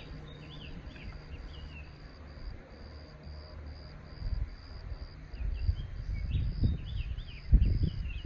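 Insects chirping in a steady high pulse about two to three times a second, with short bird chirps over it. Low rumbling gusts of wind on the microphone build from about halfway, with one loud bump near the end.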